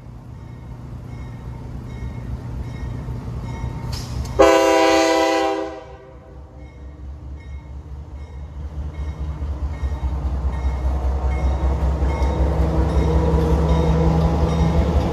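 A CSX diesel locomotive's air horn sounds one blast of about a second and a half, then the locomotive's diesel engine rumbles louder and louder as it rolls through the grade crossing. The crossing bell dings steadily and faintly.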